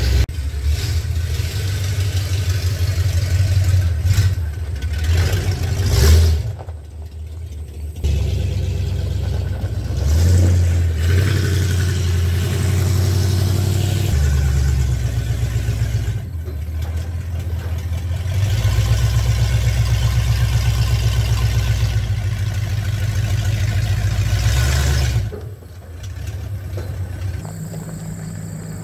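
A motor vehicle's engine running and pulling as it drives. Its pitch and level shift in steps several times, dipping briefly about six seconds in and dropping off again near the end.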